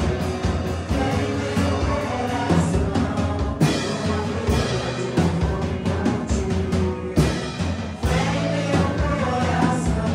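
Live worship band playing: an acoustic drum kit with cymbal crashes, sustained bass and guitar, and women singing.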